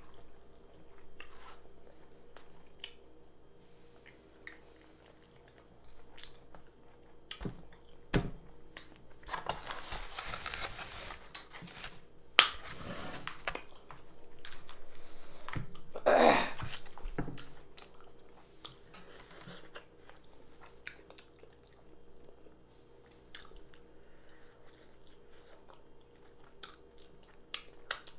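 Close-up wet chewing and mouth sounds of a person eating fufu, egusi stew and tilapia by hand, with many small clicks and smacks. There are longer, louder noisy stretches about ten and sixteen seconds in, and one sharp click about twelve seconds in is the loudest sound.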